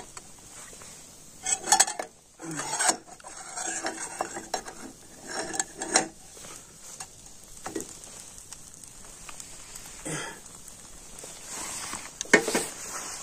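A utensil scraping and clinking against a pan as a ghee-spread sandwich cooks, with a faint steady sizzle underneath. The sharpest clicks come about two, three, six, ten and twelve seconds in.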